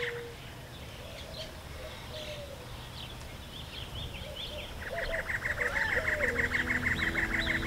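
Small birds chirping in short, quick calls, with a rapid pulsing trill setting in about five seconds in. Soft background music comes in near the end.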